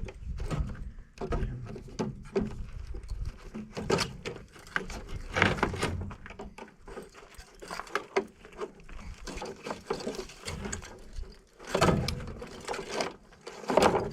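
Irregular knocks, clanks and rattles of metal as a scrap radiator is worked loose and handled with hand tools. The loudest clatter comes about five seconds in and again near the end.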